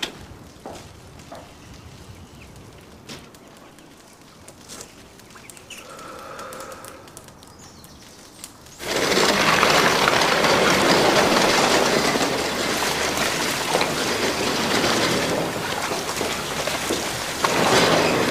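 A few faint knocks against a quiet room, then, about nine seconds in, a sudden loud steady hissing rush of steam and water in a steam laundry that keeps going.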